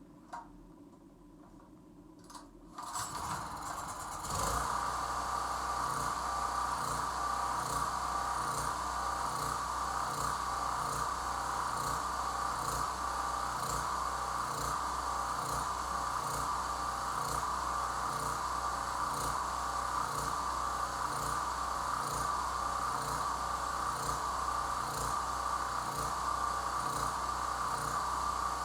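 Small portable generator's engine starting up about three seconds in and then running steadily, with a steady whine over the engine note.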